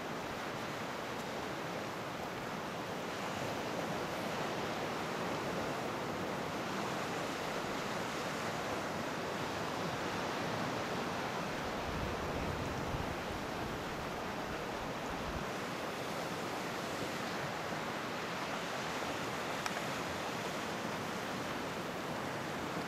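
Steady wash of sea surf mixed with wind. A few seconds of low wind rumble on the microphone come about halfway through.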